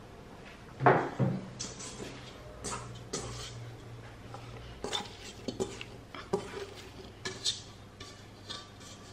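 Stainless steel stand-mixer bowl clanking and knocking on a granite countertop. The loudest clank comes about a second in with a brief ring, followed by lighter knocks and scrapes as bread dough is tipped out of the bowl.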